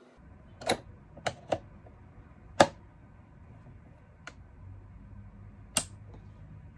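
Sharp plastic clicks and knocks from a Drill Doctor drill-bit sharpener's chuck being handled and seated in its sharpening port: six in all, the loudest about two and a half seconds in. A faint low hum sits underneath.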